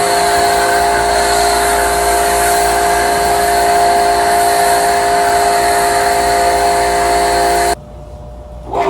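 Electric pressure washer running steadily, its motor hum under the hiss of the spray, then cutting off abruptly near the end. A brief short sound follows just before the end.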